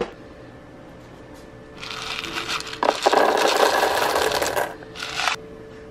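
Dried glass gem flint corn kernels poured from a plastic container into a silicone microwave popcorn bowl: a dense rattle of hard kernels that lasts about three seconds, then a short second pour near the end.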